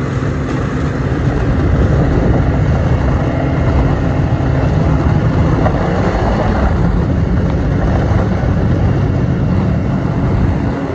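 Snowmobile engine running steadily at travelling speed while riding over snow and ice, a loud even drone under dense track noise.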